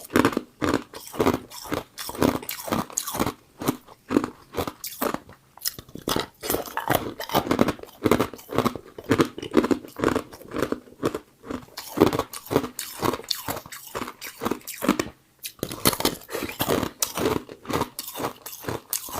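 A person biting and chewing Igloo ice with loud, rapid crunches, several a second, and short pauses between mouthfuls.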